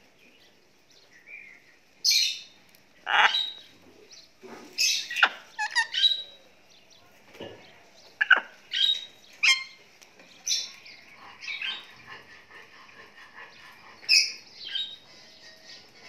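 Parrot calling: about a dozen short, sharp chirps and squawks, irregularly spaced, sometimes several within a second.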